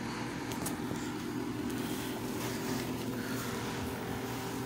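Steady low machine hum, like a running motor or appliance, with a few faint clicks near the start.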